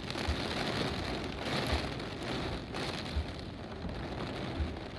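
Heavy typhoon rain with strong wind: a steady rushing downpour that swells slightly about a second and a half in. Short dull low thuds come roughly every second and a half.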